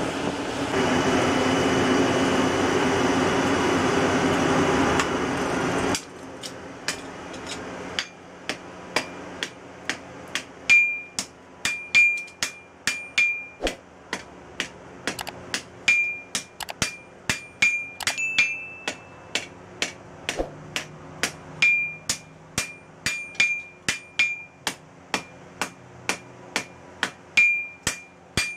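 For about six seconds a loud, steady rushing noise comes from the coal forge's air blast, then cuts off. A hand hammer then strikes hot leaf-spring steel on an anvil, about two blows a second in runs with short pauses, many blows leaving a brief high ring from the anvil.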